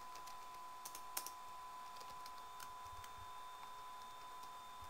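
Computer keyboard keys clicking faintly as a username and password are typed, with one sharper keystroke about a second in, over a faint steady tone.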